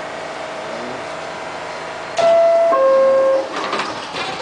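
R68 subway car door chime sounding two descending tones, followed by the doors sliding shut with a clatter of knocks, over the steady hum of the stopped car.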